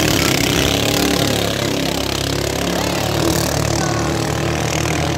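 Engines of racing motorised outrigger boats (bancas) running hard as the boats speed away, several engines overlapping in a steady drone.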